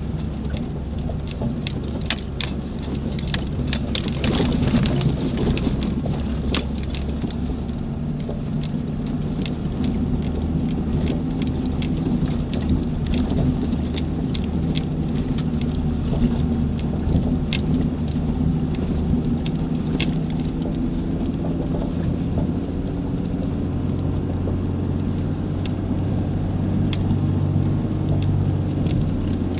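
A 4x4's engine running steadily under load as it climbs a dry dirt trail, heard from inside the cab. Tyres crackle and knock over stones and twigs, the clicks thickest in the first few seconds.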